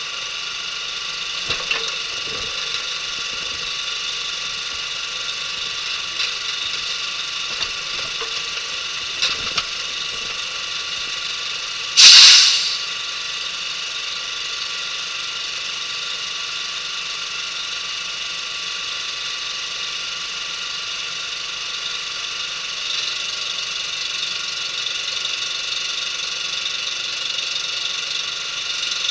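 Heavy-equipment engine idling steadily, with a few light clicks and knocks, and a single loud hiss about twelve seconds in that lasts under a second.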